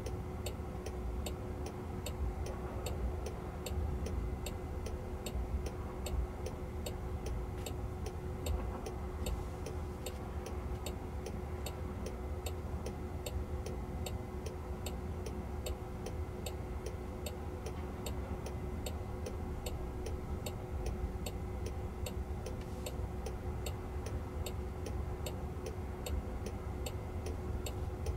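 Car turn signal ticking steadily, about three ticks a second, inside the cabin of a stationary Jaguar I-Pace, over a low steady cabin hum.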